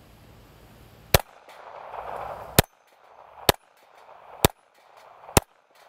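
Walther CCP 9mm compact pistol firing five shots. The first comes about a second in, and the rest follow at a steady pace of roughly one a second.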